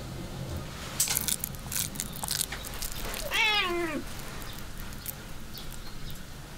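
A cat meows once, a single call of under a second that wavers and falls in pitch about three seconds in. A few light clicks and knocks come before it.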